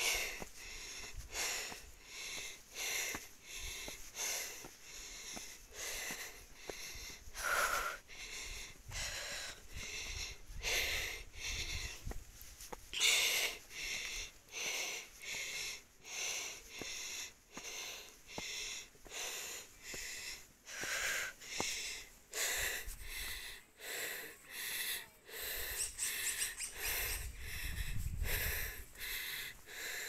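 A person panting hard while climbing steep steps, with quick, rhythmic breaths in and out about two a second: out of breath from the climb.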